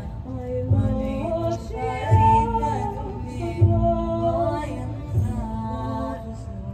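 A singing voice carrying a gliding, heavily ornamented melody over a steady low drone, with deep low notes landing about every second and a half.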